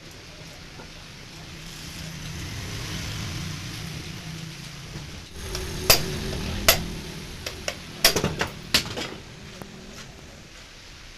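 A string of sharp metal clanks and taps, about ten in all, bunched in the second half, over a hazy rushing noise that swells and fades in the first half.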